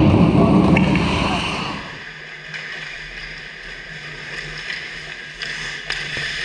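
Ice rink sound from a goal camera: loud rumbling noise with voices, which fades and drops away about two seconds in, then a quieter steady hum with a few sharp clicks of play on the ice.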